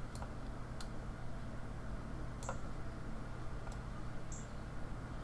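Computer mouse clicking about five times at irregular intervals, faint sharp clicks over a steady low hum.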